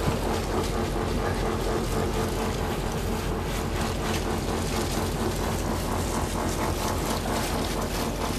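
A fishing boat's engine running steadily, a constant low drone with a broad wash of noise over it.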